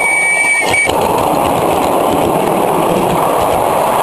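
Miniature railway carriages rolling close past, their wheels clicking and clacking over the rail joints with a steady rolling rumble. A high steady tone stops just under a second in.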